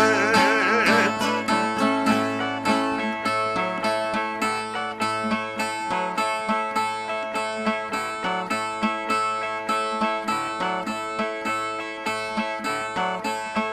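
Brazilian ten-string violas playing a plucked instrumental interlude between sung stanzas of a cantoria de repente, in an evenly repeating rhythm.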